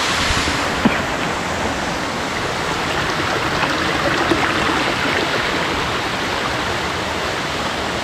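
Small rocky mountain stream running and splashing over stones and little drops, a steady rush of water. There is one short tap about a second in.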